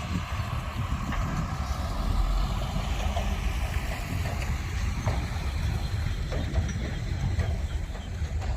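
Heavy diesel engine of earthmoving machinery running steadily, a low rumble with little change in level.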